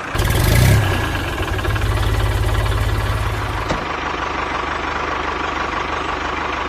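Tractor engine running, swelling louder just after the start and then running steadily; its low rumble shifts a little under four seconds in.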